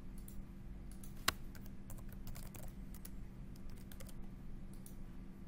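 Typing on a computer keyboard: scattered light key taps, with one sharper click about a second in, over a low steady hum.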